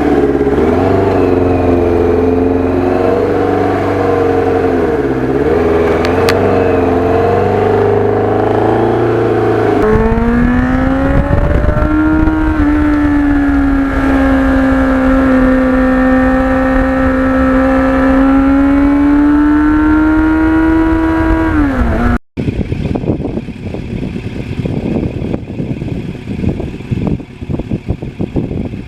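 Kawasaki GPX750R Ninja motorcycle engine running under way. About a third of the way in it revs up to a higher, steady pitch and holds it. It eases off just before a sudden cut, after which the engine sound is quieter and rougher.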